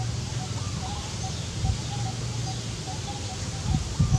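Outdoor ambience: a steady low hum with faint short chirps repeating every fraction of a second, and a few low thumps near the end.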